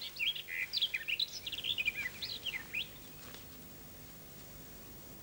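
Songbird singing a rapid, varied run of short chirps and whistles that stops about three seconds in, leaving a faint steady background.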